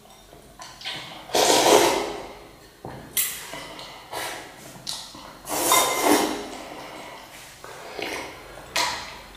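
A spoon and chopsticks clinking and scraping against ceramic noodle bowls: several separate strokes, some with a short ring.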